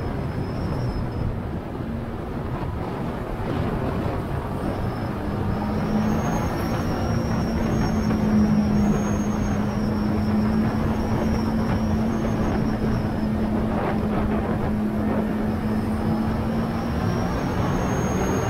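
Yamaha Tracer 900 GT's 847 cc inline three-cylinder engine running at speed under a heavy rush of wind noise. The engine note holds a fairly steady pitch through the middle, with no shifts or sharp rev changes.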